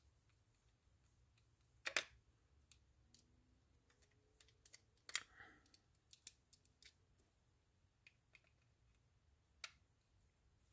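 Scattered light metal clicks and taps of a screwdriver working out the side-plate screws of a Penn Senator II reel, with the small screws handled and set down. The sharpest tap comes about two seconds in, with a cluster of clicks around five to seven seconds and one more near the end.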